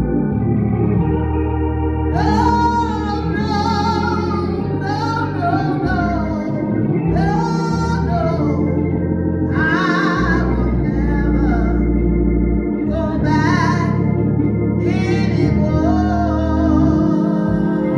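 A woman singing a gospel solo over organ chords, holding long notes with a wavering vibrato.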